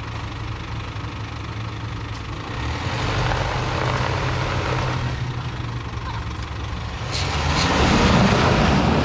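A four-wheel-drive's engine runs steadily and is revved up twice on an off-road climb. The second surge, near the end, is the loudest and carries a rush of higher noise.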